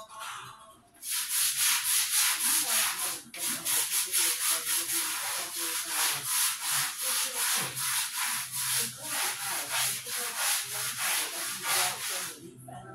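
Small hand brush scrubbing the grout lines of a tile floor in quick back-and-forth strokes, about four a second. It starts about a second in, pauses briefly about three seconds in, and stops near the end.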